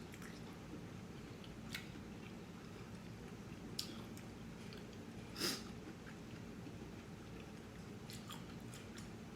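Close-up mouth sounds of someone chewing lobster tail meat, with a few sharp wet clicks of lips and teeth. The loudest click comes about five and a half seconds in.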